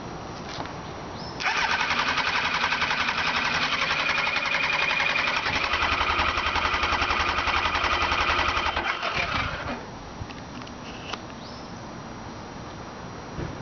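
2002 Kawasaki ZX-9R's starter motor cranking the inline-four engine for about eight seconds, a fast even churning that never catches and runs: the bike won't start. It stops abruptly near the end.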